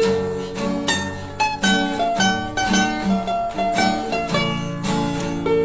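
Background music: a quick, light melody played on a plucked string instrument, one note after another.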